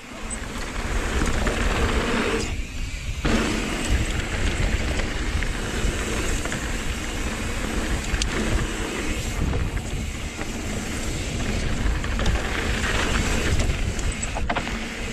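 Wind buffeting the microphone and mountain-bike tyres rolling over a dirt trail at speed, a steady rushing rumble that dips briefly about two and a half seconds in.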